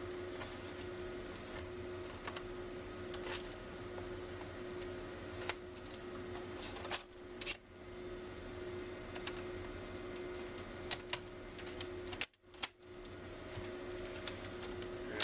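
Irregular plastic clicks and snaps as the laptop screen's plastic bezel is pressed back onto the display lid and its clips seat, over a steady hum.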